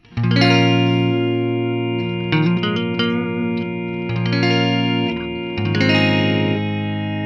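Electric guitar chords played through an Electro-Harmonix Freeze sound retainer pedal, which holds a frozen chord as a steady drone under the newly played notes. Fresh chords come in every second or two over the held sound.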